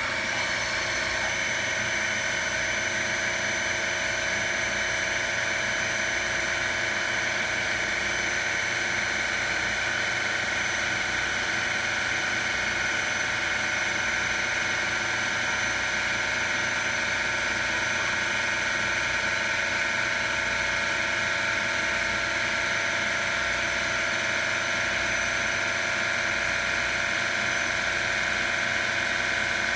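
Milltronics RW15 CNC vertical machining center running under power: a steady high-pitched whine over a constant low hum.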